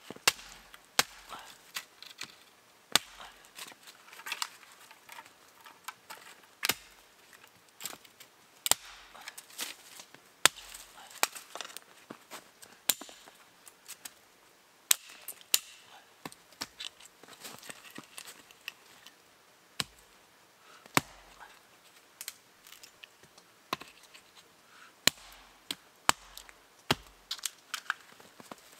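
Sharp, irregular cracks and knocks of firewood, roughly one every second or two, a few much louder than the others.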